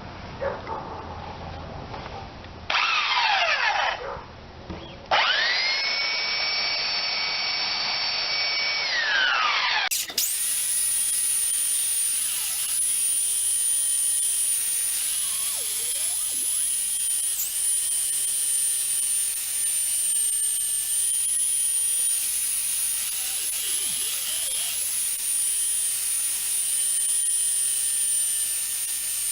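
Electric power sander sanding a glued-in wood repair block flush with an old door. It starts briefly, stops, then spins up and runs steadily with a high whine.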